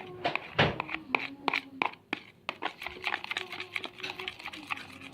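Glue-and-borax slime being stirred and mixed in a container, with many quick irregular clicks and scrapes.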